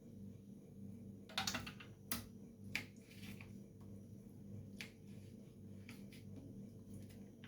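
Hands cleaning peeled citrus fruit, pulling off pith and strings: a handful of short, irregular clicks and snaps, the loudest cluster about a second and a half in, over a steady low hum.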